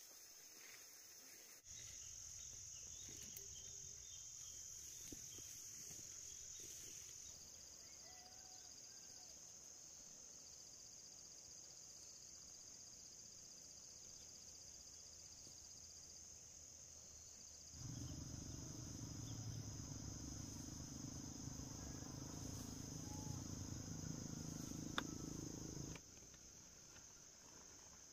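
Insects chirring in a steady, high, even drone. Under it, a low rumble comes in about two seconds in, grows louder for several seconds in the second half, then stops suddenly.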